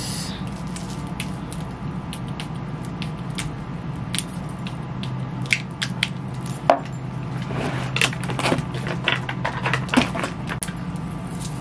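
Light clicks and clinks of metal bracelets and a watch being handled and put on, scattered irregularly with a few sharper taps, over a steady low hum.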